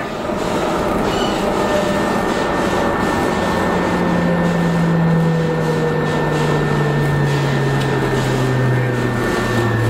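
AnsaldoBreda driverless metro train running through a tunnel with steady wheel and rail noise. About four seconds in, an electric motor whine comes up and slowly falls in pitch as the train slows into the station.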